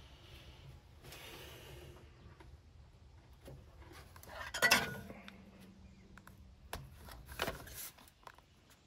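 Light metallic clinks and handling noises of tools or parts in an engine bay, with one sharper clink about halfway through that rings briefly, and a smaller clatter near the end.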